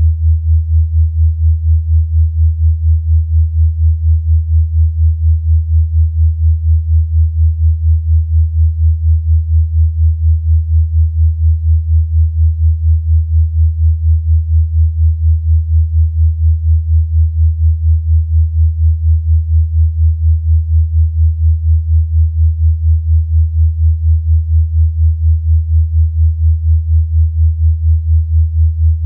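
A low, electronically generated sine tone, pitched below about 100 Hz, held steady and pulsing evenly in loudness several times a second: a sound-therapy 'frequency' tone meant for relaxation.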